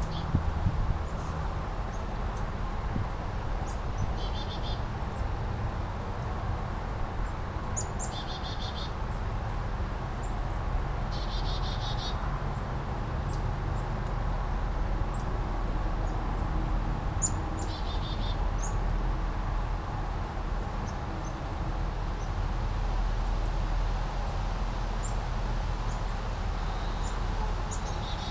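Small brook running steadily, with birds chirping over it: four short quick trills spaced a few seconds apart and scattered brief high chirps.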